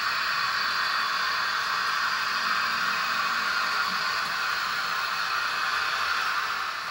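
Model train (a diesel locomotive hauling passenger coaches) running past on layout track: a steady rolling hiss of wheels on rails and the running motor.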